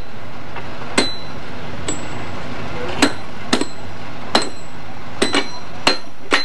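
Spike mauls driving steel rail spikes: sharp ringing metal clanks, about eight blows at an uneven pace as two workers strike in turn.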